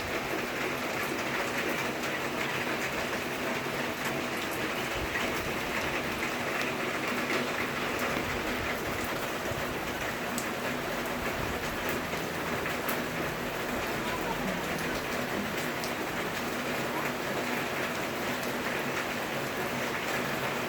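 Steady rain falling, an even hiss of rain on surfaces with scattered individual drop ticks.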